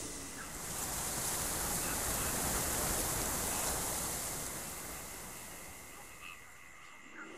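Steady rushing hiss-like noise with no distinct events, fading down over the last couple of seconds.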